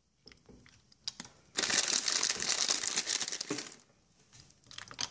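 Plastic chocolate packet crinkling as a hand reaches into it: a long stretch of crinkling from about a second and a half in, lasting about two seconds, with a few small clicks and rustles before it and near the end.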